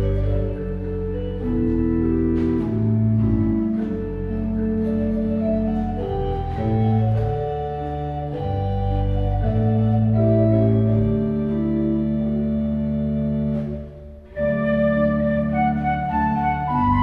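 Church organ playing a slow piece of sustained chords over held bass notes, with a brief break about fourteen seconds in before it resumes.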